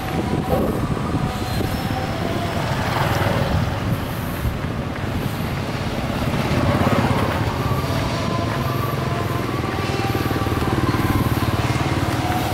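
A motor vehicle running steadily, a continuous engine and road rumble.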